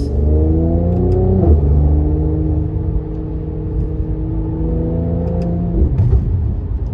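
Mercedes-AMG C43's twin-turbo V6 and exhaust under acceleration, heard from inside the cabin: the engine note rises, drops sharply at an upshift about a second and a half in, then pulls up again. Near the end the throttle is lifted and the note falls, with a few short cracks from the exhaust.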